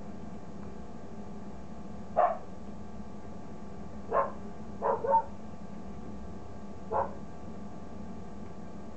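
Newborn Dalmatian-cross-Collie puppies giving short squeaky yelps, five in all. They come a second or two apart, with two in quick succession about five seconds in, over a steady low hum.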